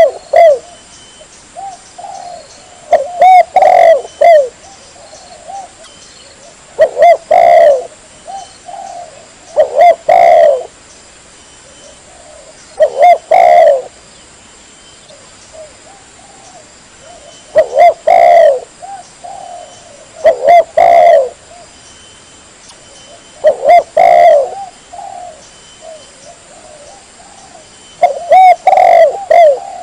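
Spotted dove (tekukur) cooing: a loud, close, repeated coo phrase every three to four seconds, about nine phrases in all. It is a recording of the call made for use as a lure call.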